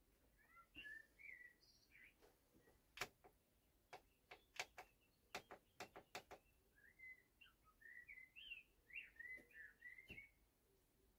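Faint chirping of small birds in short phrases near the start and again through the second half, with scattered sharp clicks and taps, most of them bunched in the middle.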